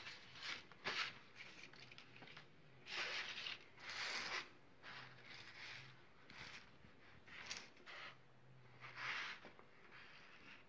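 Faint rustling and sliding of small plastic-covered picture cards being set down and pushed about on a paper poster board, in several short bursts, the loudest about three and four seconds in.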